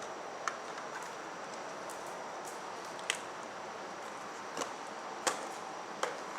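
Steady background hiss with a faint high whine, broken by about five sharp, irregular clicks or taps, one every second or so.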